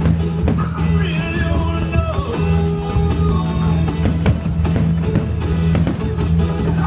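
A rock song with singing, with a heavy, steady bass. A few sharp bangs from aerial fireworks bursting cut through it.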